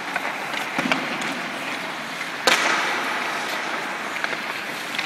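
Ice hockey skates scraping and carving on the ice with light clicks of a stick on the puck, and one sharp crack about two and a half seconds in that echoes round the rink.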